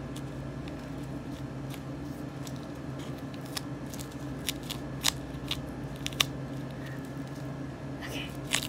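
A plastic honeycomb case handled in plastic-gloved hands: scattered sharp clicks and crinkles, the sharpest about five and six seconds in and again near the end, over a steady low hum.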